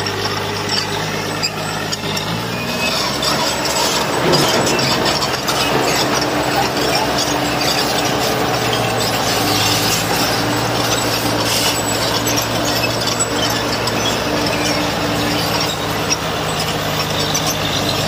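Diesel engine of heavy earthmoving machinery running steadily, its pitch shifting about four seconds in, over a dense rough mechanical noise with scattered sharp clanks.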